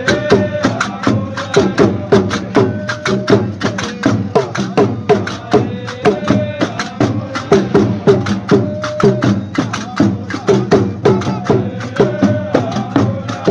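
Qarqabu music: several pairs of iron qraqeb castanets clacking in a fast, steady rhythm, with men's voices singing together over a drum.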